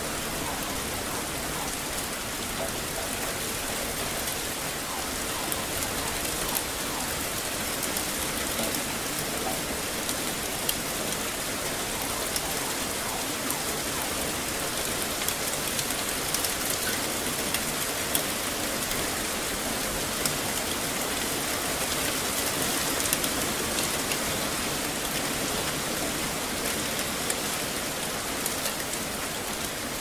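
Steady rain falling: an even hiss of rain with many small, sharp drop ticks scattered through it and a few louder ones now and then.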